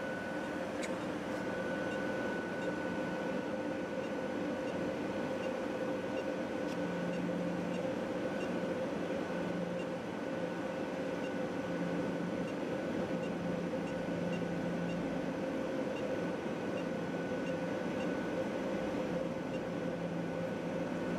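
Steady mechanical hum and hiss with a constant high whine; a lower hum swells and fades several times in the second half.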